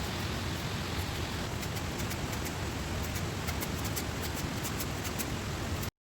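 Steady rushing noise, heaviest in the low end like wind buffeting the microphone, with quick small crackles scattered through it from about a second and a half in. All sound cuts off abruptly near the end.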